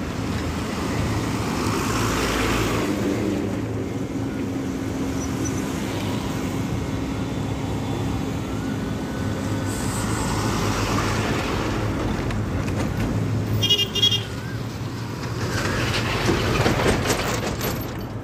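Heavy trucks and other road traffic passing close by, with engines running and tyres rumbling, growing louder three times as vehicles go past. A short vehicle horn toot sounds about three-quarters of the way through.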